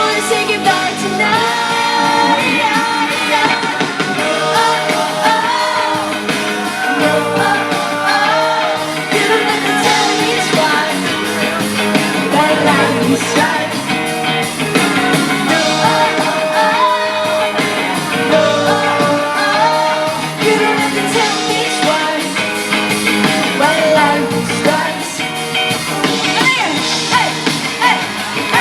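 Live pop-rock music: a band playing with a sung melody over guitars and drums.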